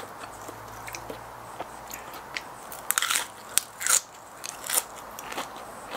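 Close-up mouth sounds of a person biting into and chewing a crisp curly lettuce leaf wrapped around raw salmon salad: wet crunches and small clicks, loudest in bursts about three and four seconds in.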